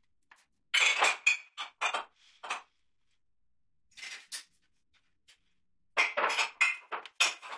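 Plastic bag of catnip crinkling as it is handled, in short crackly bursts: a cluster about a second in, a brief one around four seconds, and a busier run near the end.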